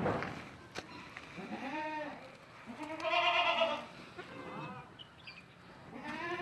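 Several goats bleating, one call after another, about five bleats in all; the loudest and highest-pitched comes about three seconds in. A short noisy burst sounds right at the start.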